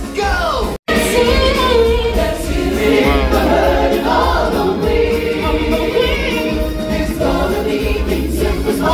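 A choir of voices singing over loud backing music in a live stage performance. The sound cuts out for an instant a little under a second in.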